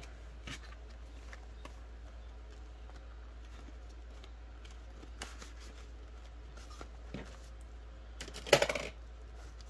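Soft rustling and light clicks of polymer banknotes and clear plastic binder pockets being handled, with one short, much louder sound near the end.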